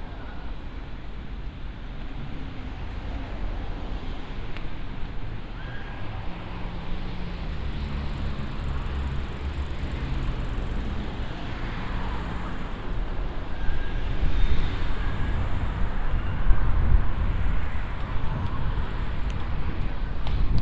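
City street ambience with road traffic going by: a steady low rumble of engines and tyres that grows louder toward the end.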